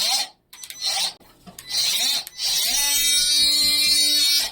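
Ryobi 18V cordless oscillating multi-tool switched on in three short bursts, the motor whine rising in pitch each time it spins up. It then runs steadily for about two seconds and cuts off sharply near the end.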